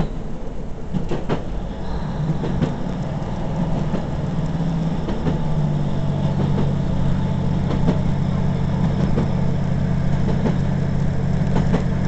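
Inside a diesel train carriage under way: the engine's low drone shifts in pitch over the first few seconds, then holds steady from about halfway, with scattered clicks from the wheels on the rails.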